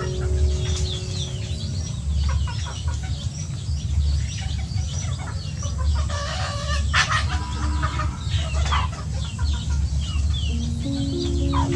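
Young chickens clucking and peeping, with short high chirps throughout and one louder call about six to seven seconds in.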